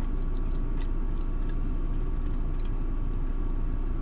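Steady low hum inside a car's cabin, with a few faint mouth clicks of someone chewing fried chicken.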